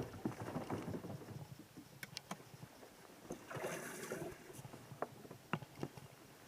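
Faint knocks and clicks of handling on a bass boat, with a short rush of noise about three and a half seconds in.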